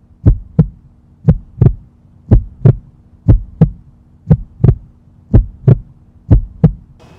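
Heartbeat sound effect: pairs of low thumps in a steady lub-dub rhythm, about one beat a second, over a steady low hum.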